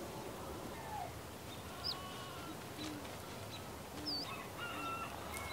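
Several birds calling: scattered short chirps and whistled notes, a sharp call about two seconds in, and two short low calls near the middle.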